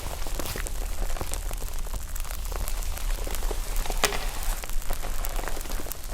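Slime being squeezed and worked by hand, giving a dense, irregular run of small crackles and pops like rain on a surface, with a sharper pop about four seconds in.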